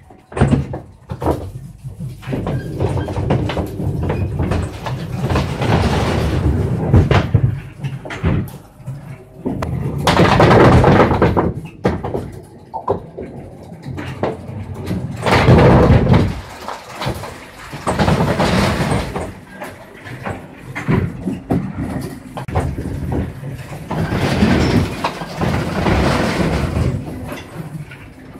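String pinsetter of a nine-pin bowling alley at work: pins clattering and knocking on the pin deck as the machine's cords haul them up and set them back down, with mechanical running and clunks from the winch mechanism. It comes in several louder spells.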